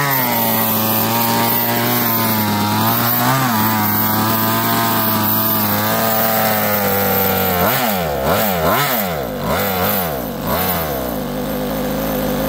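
Small two-stroke gas engine of a 1/5-scale Exceed Barca 4x4 RC buggy on a speed run. It holds steady at high revs, then is revved up and down quickly several times a little past halfway.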